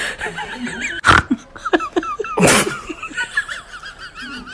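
A cat sneezing twice, a short sharp sneeze about a second in and a longer one about halfway through, over a thin wavering whistle-like tone.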